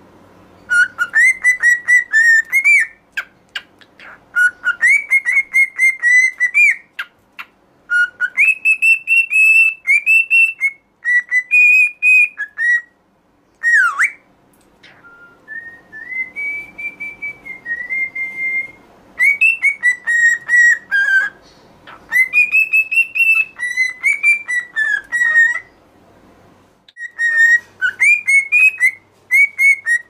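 Adult male grey cockatiel whistling its song: phrases of quick, warbling whistled notes separated by short pauses, with a longer, smoother held whistle about halfway through.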